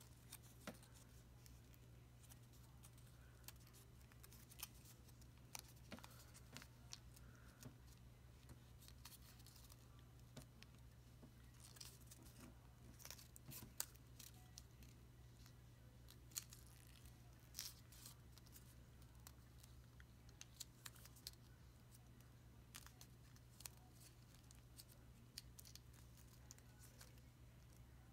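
Origami paper being folded and creased by hand: faint, scattered crinkles and clicks of the paper, over a low steady hum.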